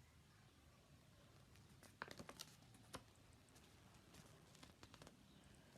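Faint clicks and light rustling from handling a small rolled paper message and the bottle it came in, with a few clicks together about two seconds in and more scattered later.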